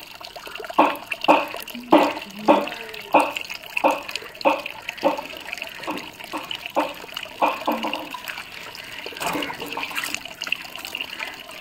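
Water splashing during a bath with a mug: a run of short wet splashes about every half second, then a mug of water poured over the shoulder and splashing down about ten seconds in, over a steady sound of running water.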